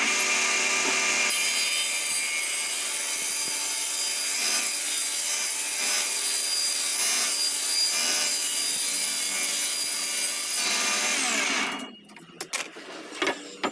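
Homemade table saw, a circular blade set in a wooden table, starting up suddenly and running loud and steady while a long board is ripped through it. Near the end the motor is cut and the blade spins down with a falling whine, stopping about twelve seconds in.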